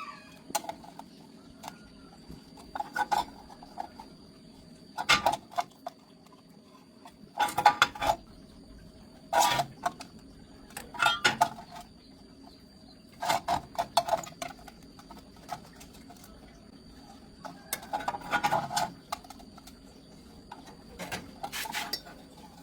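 Metal clinking and knocking in short clusters of quick strikes, about every two seconds, over a faint steady whine.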